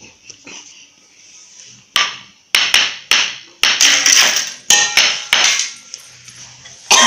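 A child banging on a round wooden roti board: a quick run of about ten sharp knocks starting about two seconds in, then quieter.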